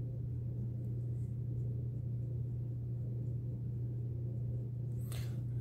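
A steady low-pitched hum.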